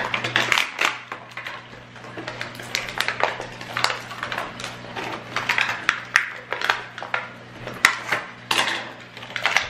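Plastic toy packaging crinkling and crackling as it is pulled, torn and cut open by hand and with scissors, in a string of short crackles and clicks.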